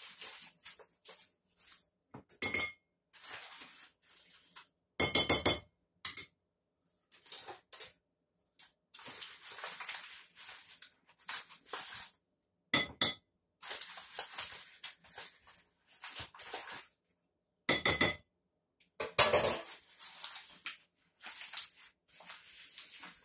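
A measuring spoon clinks and knocks against a bowl while a plastic bag rustles, as flour is spooned into the sauce. The clinks come in scattered bursts, the loudest a quick cluster about five seconds in.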